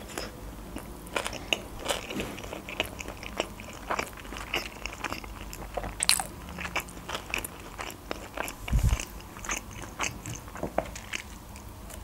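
A person biting and chewing a sushi roll: wet clicks and crunches, several a second, with a dull low thump about nine seconds in.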